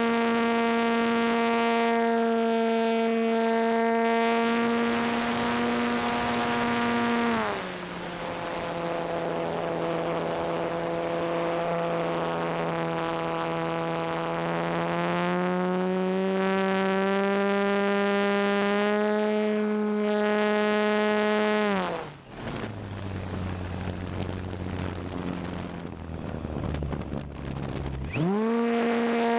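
ParkZone T-28 Trojan RC plane's electric motor and propeller whining, heard from the onboard camera, with wind rushing past. The pitch drops as the throttle is eased back about seven seconds in and creeps back up. It falls away sharply around twenty-two seconds as the throttle is cut, then rises quickly back to full pitch near the end.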